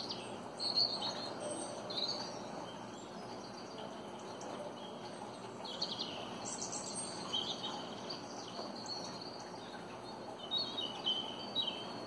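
Small birds chirping and twittering in short, high calls that come in clusters, about a second in, again around six to seven seconds, and near the end, over a steady hiss.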